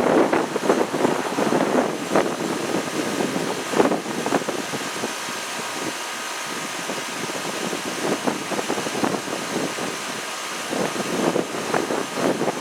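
Goodman GSX14 2.5-ton heat pump outdoor unit running steadily through a defrost cycle, a mechanical hum and hiss with faint steady tones. Wind gusts buffet the microphone, strongest at the start and again near the end.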